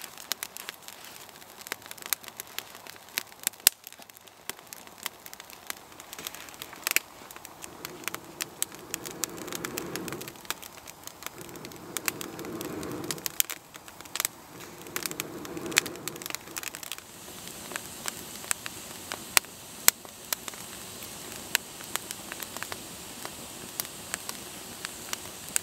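Campfire of damp kindling and wet bark crackling with frequent sharp pops. Between about a third and two thirds of the way in, three long breaths are blown into the fire, each a rush lasting a second or so.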